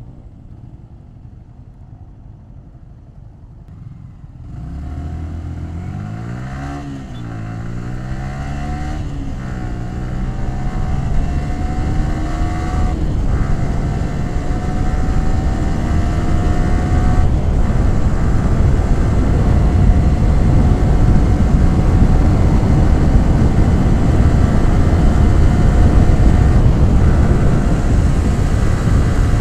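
Yamaha R15 V3's 155 cc single-cylinder engine on the move: quiet at first, then about four seconds in the engine note jumps up as the bike accelerates hard, its pitch swinging up and down through gear changes, then climbing slowly and steadily as speed builds, with rushing wind growing beneath it.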